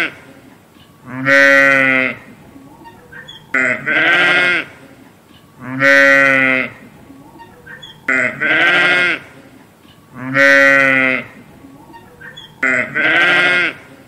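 Sheep bleating: six loud bleats, each about a second long, coming in pairs, one pair about every four and a half seconds.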